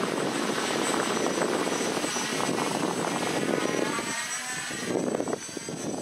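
Quadcopter's 2212 brushless motors and propellers buzzing in flight: loud and dense for the first four seconds, then fainter, with a wavering whine as the motor speed changes.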